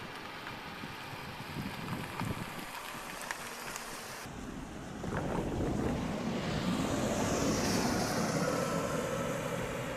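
Outdoor wind noise on the microphone: a steady rushing that grows louder about halfway through, with a few faint clicks in the first half.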